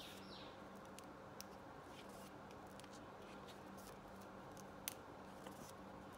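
Faint rustling and light ticks of stiff paper and card panels as an accordion-fold book is handled and opened, over a low steady hum; one sharper click about five seconds in.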